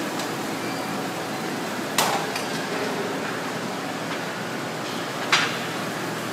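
Two sharp metallic clanks of gym weights, about three seconds apart, over a steady background hiss.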